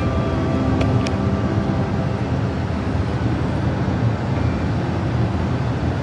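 Steady road noise inside a moving car's cabin at highway speed: low tyre and engine rumble with a faint hum.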